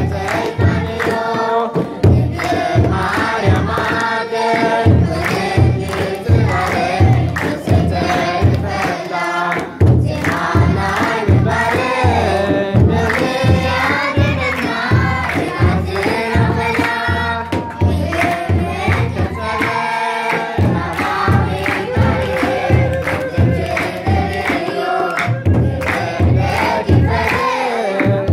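Children's choir and congregation singing an Eritrean Orthodox mezmur (Lidet, Christmas, hymn) together, with hand clapping and a steady beat on a kebero church drum.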